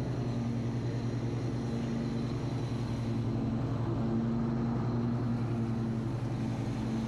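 Husqvarna R214TC front-deck rider mower running steadily while mowing, a constant engine drone heard from the driver's seat.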